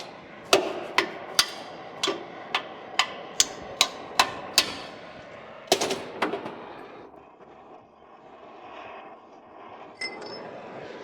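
Hammer blows on metal: about ten sharp strikes at roughly two a second, then a short cluster of strikes after a brief pause, and a quieter stretch with a single click near the end.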